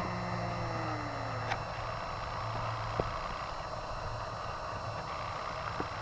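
Traffic on a nearby highway: a steady low drone, with one passing vehicle whose pitch falls over the first second and a half. Two faint clicks are heard, about a second and a half and three seconds in.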